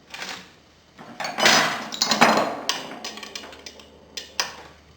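Metal tool handling at a bicycle crank: a crank puller being screwed into the crank arm and tightened, with scraping and clinking of metal on metal. It is loudest from about a second to two and a half seconds in, with a few sharp clicks after.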